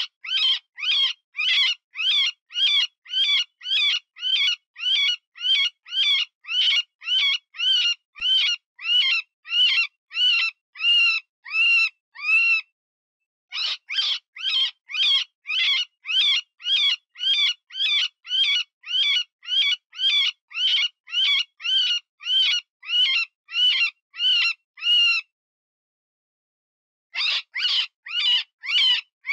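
Cottontail rabbit distress call played as a predator lure: rapid, evenly repeated high-pitched squeals, about two and a half a second, each rising and falling in pitch. The squeals come in long runs broken by two short pauses, about halfway through and near the end.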